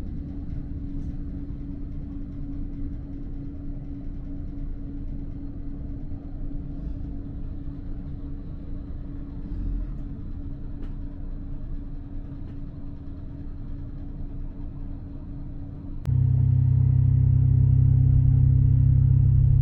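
KiHa 54 diesel railcar's engine running, a steady low rumble with a steady hum over it. About 16 seconds in the sound jumps abruptly to a much louder, deeper engine drone.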